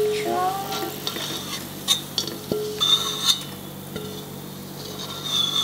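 Metal utensil knocking and scraping against a metal pan and sieve, several knocks ringing briefly, over a light sizzle of hot frying oil, as deep-fried shallots are tipped onto a sieve to drain.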